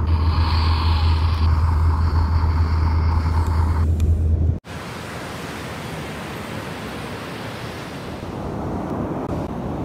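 Wind rumbling on the microphone on a sandy beach, with a steady higher tone over it that stops a little before it cuts off abruptly about halfway through. After the cut comes a softer, even wash of ocean surf.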